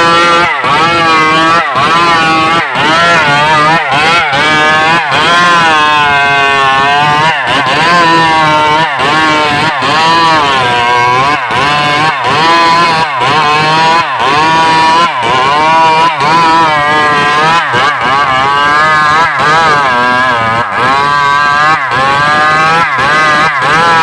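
Stihl MS381 two-stroke chainsaw running at high revs while cutting wood, its pitch wavering up and down as the chain loads and frees in the cut, with short regular dips in the sound.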